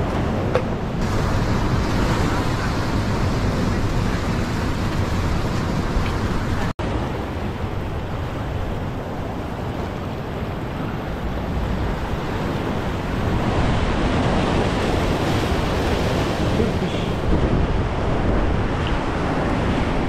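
Ocean surf washing and surging over a sandstone rock platform, a steady rush of water, with wind buffeting the microphone. The sound drops out for an instant about seven seconds in.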